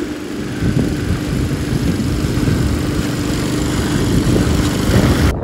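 Honda walk-behind lawn mower's petrol engine running steadily while cutting grass, with an even drone. The sound cuts off suddenly near the end.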